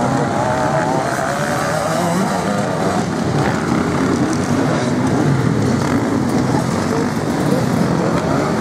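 Off-road enduro motorcycle engine revving, its pitch rising and falling with the throttle as the bike climbs over rough dirt.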